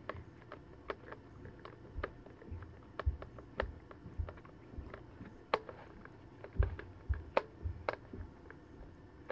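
Irregular clicks and light knocks of a screwdriver working at the screws in the plastic body of a Gemmy animated macaw toy, opening it to get at a split gear. Some of the clicks come with a dull low bump as the toy is handled.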